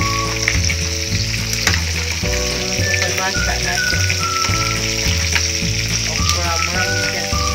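Steady sizzling of food frying in a pan, with a few clicks of a metal ladle stirring a steel pot of vegetable stew. Music with a repeating bass line and a gliding melody plays underneath.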